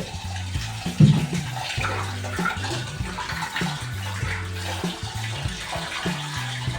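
Water splashing and running as raw beef is washed, with a knock about a second in.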